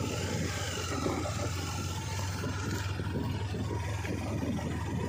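Sport motorcycle engine running at low, steady revs, with its tyres crunching over a loose gravel track.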